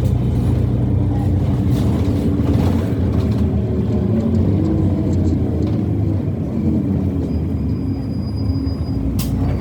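Irisbus Citelis CNG city bus running: a steady low engine drone whose pitch shifts slightly midway, with one sharp click near the end.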